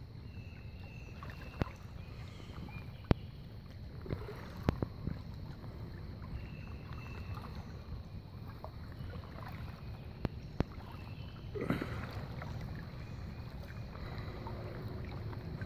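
River water lapping and sloshing around legs wading in a shallow river. A few sharp clicks stand out over it, along with some short, high chirps.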